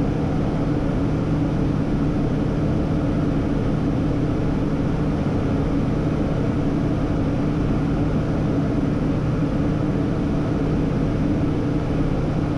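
Steady cockpit noise of a Hawker 800XP business jet on final approach: a constant rush of air with a low, even hum from its TFE731 turbofan engines.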